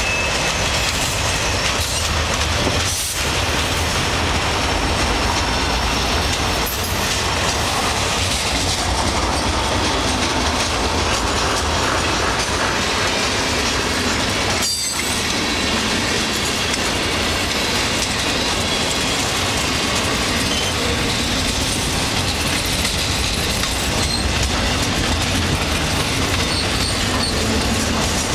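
Long freight train passing at close range: the trailing locomotive goes by first, then a steady stream of covered hoppers and freight cars with continuous wheel-on-rail noise.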